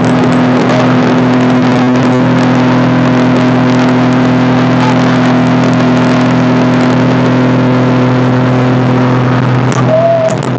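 An engine running steadily at constant speed, a loud even hum with a fixed pitch.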